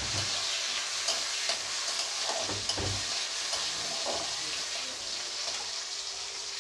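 Chopped tomato sizzling in hot oil in a metal kadai, a steady frying hiss, with a flat metal spatula stirring and now and then scraping and tapping against the pan.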